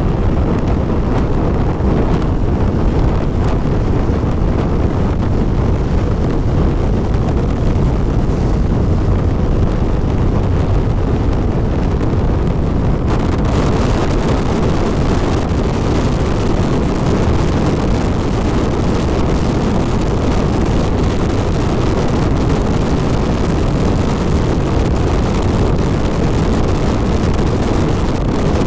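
Wind buffeting the microphone on a Hero XPulse 200 motorcycle ridden at speed, with the engine and road noise underneath as a steady low rush. The higher hiss gets brighter about halfway through.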